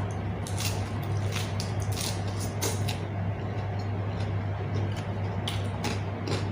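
Close-miked eating sounds: a series of short, wet chewing crunches and smacks, bunched in the first few seconds and again near the end, over a steady low hum.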